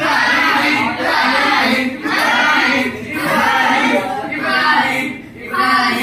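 A song with a high sung voice, a child's or a woman's, in phrases of about a second each, with a longer break about five seconds in.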